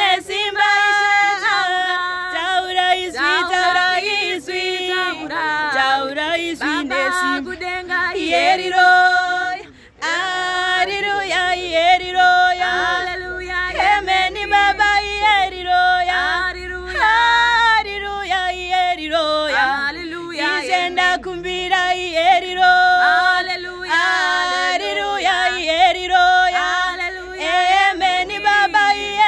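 Women singing a Shona gospel song together, with a brief pause about ten seconds in.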